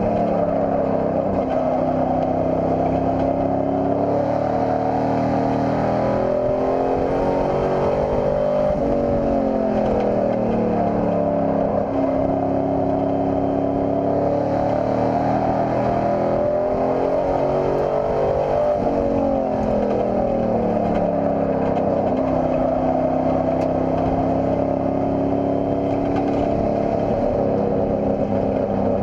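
Race pickup truck's engine heard from inside the cab, running hard and climbing in pitch, easing off twice as the pitch drops, then holding steady near the end.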